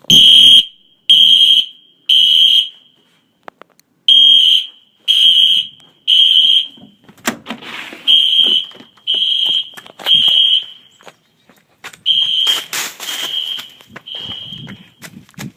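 Household smoke alarms sounding in the three-beep evacuation pattern: three loud, high-pitched half-second beeps, a pause, then three more, over and over. From about seven seconds in, knocks and footstep-like thumps come between the beeps, and the beeps are a little fainter.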